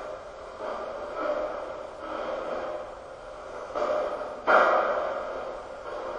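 Breathy, whisper-like human sounds in a string of short bursts, the loudest starting suddenly about four and a half seconds in.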